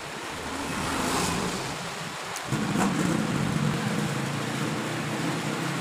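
A motor vehicle engine running steadily in the background, its hum coming in suddenly about halfway through, with a few light clicks near the same moment.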